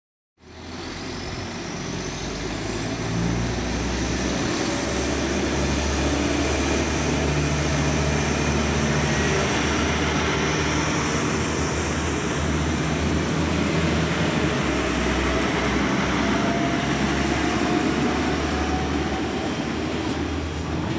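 Regional multiple-unit train running at a station platform: a steady hum and rumble with a high whine that rises over the first few seconds and then holds, and a fainter tone that climbs slowly in the second half.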